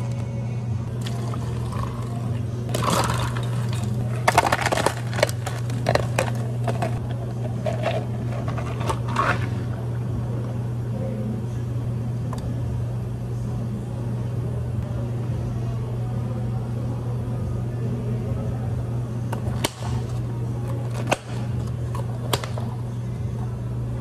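Drink-making at a cafe counter: clattering and clinking of cups and utensils with some pouring, mostly in the first ten seconds, then a few sharp clicks later on, over a steady low machine hum.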